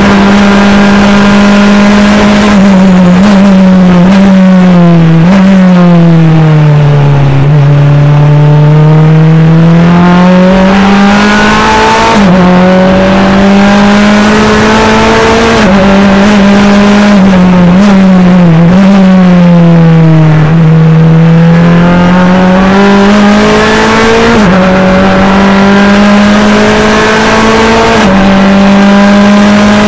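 A Mazda four-cylinder engine in an NP-01 prototype race car, heard from inside the cockpit at racing speed. Twice the engine note drops as the car slows for corners, then climbs again under hard acceleration, with quick steps in pitch at the gear changes.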